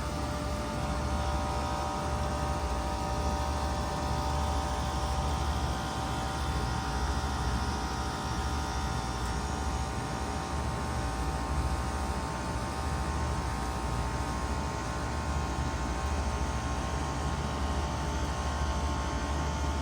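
Bard 4-ton wall-hung heat pump running steadily partway through its defrost cycle: a low hum with several held tones above it and an even hiss.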